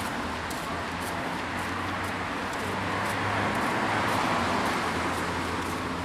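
City street traffic: a passing vehicle's tyre and engine noise swells to its loudest about halfway through and then fades, over a low steady hum.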